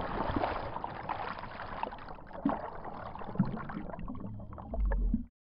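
Muffled underwater rush of bubbles and churning water as a body plunges through the pool, with a few sharp knocks. It swells into a low thump near the end and then cuts off abruptly.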